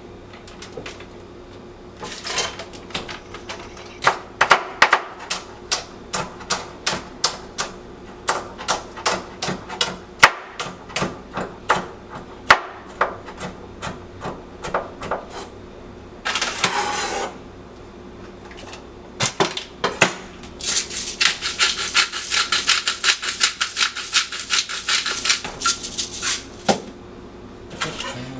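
A kitchen knife chopping on a cutting board in sharp knocks, two or three a second. A short hiss comes about halfway through, then a run of quicker, denser chopping strokes.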